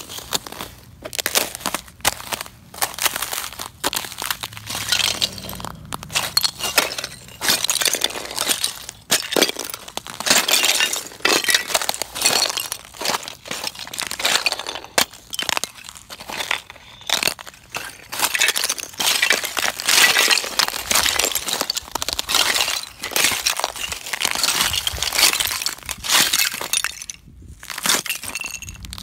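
A thin sheet of ice over grass cracking and breaking underfoot, many sharp cracks and glassy clinks of shards in quick succession, with a short pause near the end.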